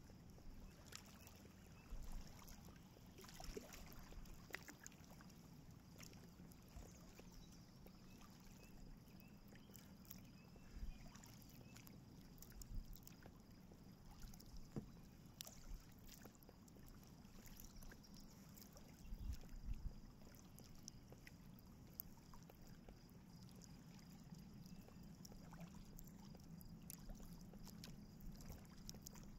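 Faint kayak paddling: a double-bladed paddle dipping on alternate sides, with small irregular splashes and drips of water off the blades every second or two.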